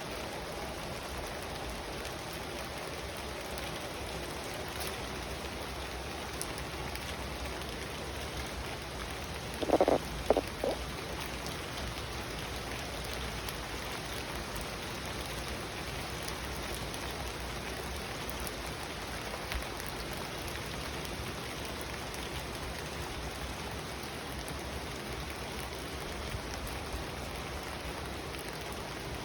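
Steady rain falling and pattering on surfaces. About ten seconds in, a brief burst of a few loud knocks stands out above it.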